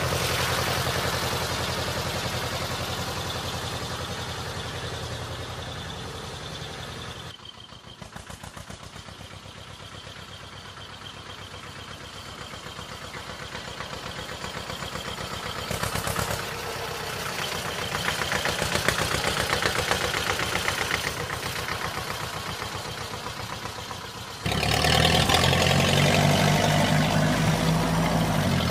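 A tractor's diesel engine running at idle with an even, pulsing beat. It fades down over the first several seconds, builds again, and turns sharply louder about 24 seconds in.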